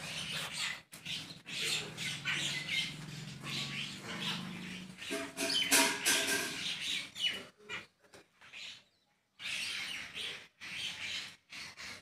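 A flock of common mynas calling, a dense chatter of squawks and chirps, with a short silent gap about nine seconds in.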